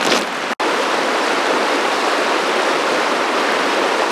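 Shallow river rushing steadily over a rocky riffle. Right at the start, a single crunching step on river cobbles, then the sound cuts to the water alone.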